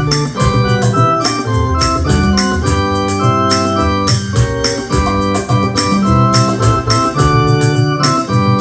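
Electronic keyboard playing a hymn tune in held chords over a moving bass line, with a steady quick percussive beat of about three to four ticks a second.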